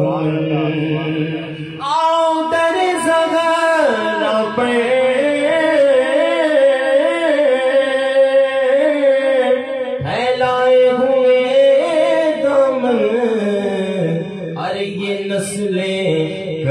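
A man singing an Urdu manqabat unaccompanied into a microphone, drawing out long held, wavering melodic phrases without clear words. A low steady drone sits beneath at the start and near the end.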